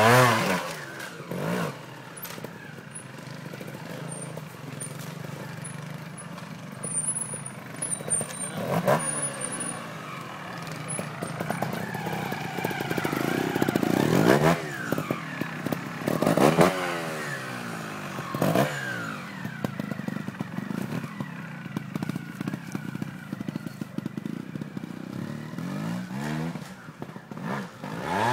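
Trials motorcycle engine blipping its throttle: short revs that rise and fall in pitch, several times, between spells of lower running, with some clatter and scraping over the rocks.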